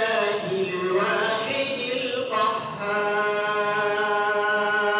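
A young man reciting the Qur'an in a melodic chant into a handheld microphone. His pitch moves through the first half, then after a short breath he holds one long steady note from about three seconds in.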